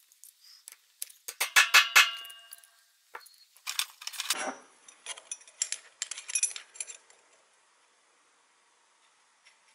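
Small sheet-metal clock motor parts clinking and clattering as they are handled against a steel bar, with a quick run of sharp ringing clinks about a second in, a scrape a little before halfway, and lighter metal taps after it.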